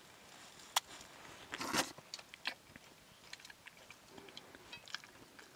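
Someone chewing and biting food, with scattered small clicks and a louder crunch just under two seconds in.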